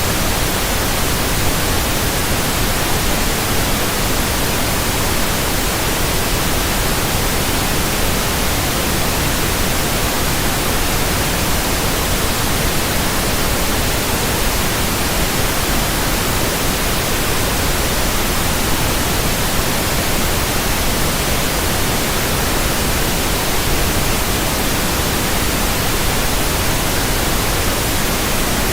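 Steady, loud static noise, an even hiss across the whole range with no tones or breaks, like an untuned TV or radio.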